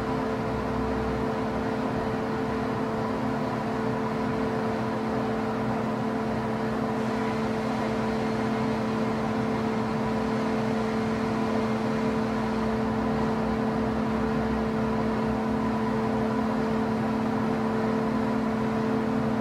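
Hand-held hair dryer running steadily, a constant motor hum under the rush of air, drying lace-wig glue until it is tacky.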